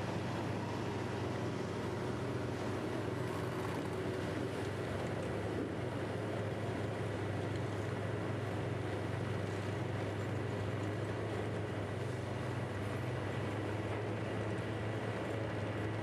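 Diesel engine of a large mining crawler bulldozer running steadily: a deep, even drone that neither rises nor falls.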